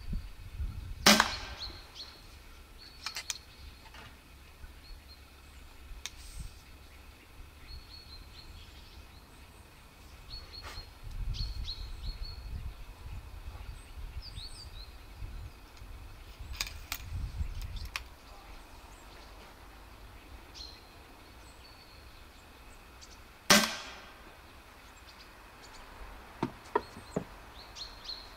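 Air rifle firing blowgun darts: a sharp shot about a second in and another about twenty seconds later, with smaller clicks of the gun being handled and loaded in between. Birds chirp faintly throughout.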